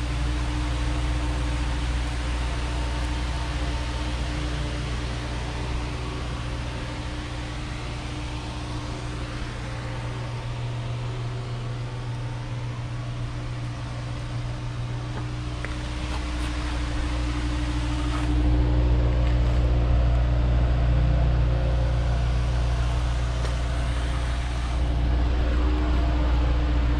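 Steady low mechanical drone holding several constant tones, swelling louder for a few seconds about two-thirds of the way in and again near the end.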